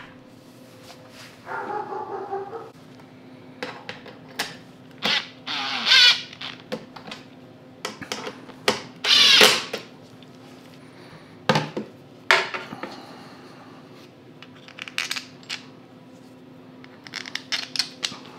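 A series of clicks, taps and short rattles from plastic and metal parts being handled: the electric starter's cord and plug housing being fitted on top of a snowblower engine, with a couple of longer scraping or rattling handling noises and a steady low hum underneath.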